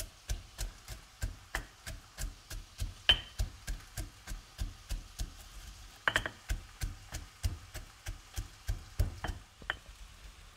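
Stone pestle pounding walnuts in a heavy stone mortar, crushing them to a powder: steady knocks about three a second, a few of them harder.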